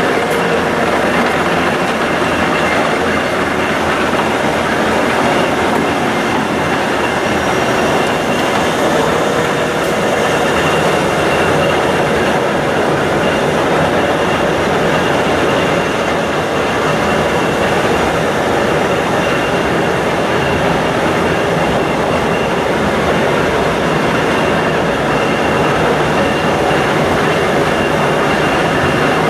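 Heavy machinery running steadily: a loud, even mechanical clatter with a faint constant whine.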